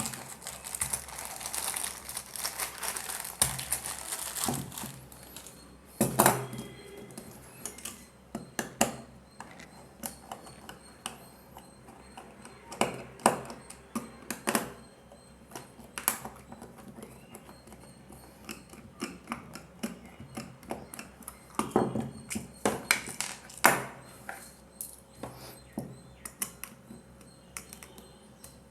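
A plastic three-pin plug top being handled and assembled onto a power cable: scattered clicks, taps and rattles of small plastic and metal parts, with a scraping hiss in the first few seconds.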